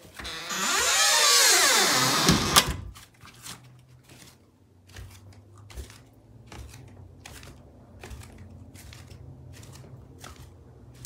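A door swishing as it swings over carpet, ending in a sharp latch click. Then a run of soft, quiet footsteps climbs thickly carpeted stairs, about two steps a second, over a low steady hum.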